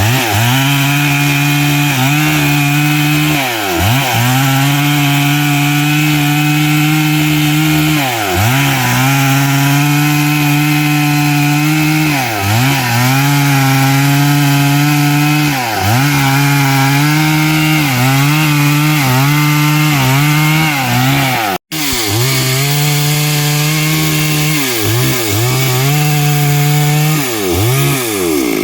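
Stihl MS 382 two-stroke chainsaw with a 24-inch bar running at high revs through wood, its pitch sagging and recovering every few seconds as the chain loads up in the cut. The sound cuts out for an instant about three-quarters of the way through.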